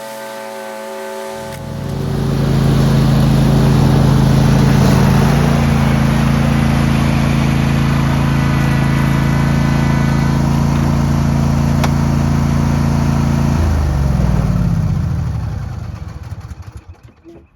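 Music ends, then a lawn mower engine runs at a steady speed for about twelve seconds. It is switched off near the end and its pitch falls as it winds down to a stop.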